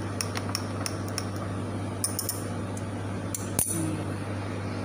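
Metal spoon stirring frothy juice in a glass bowl, clinking lightly against the glass at scattered moments, with one sharper clink a little past the middle. A steady low hum runs underneath.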